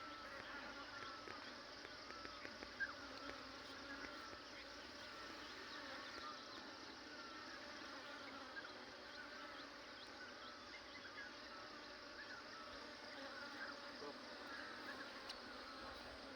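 Faint, steady insect buzzing with many short chirps scattered through it, and a single brief tick about three seconds in.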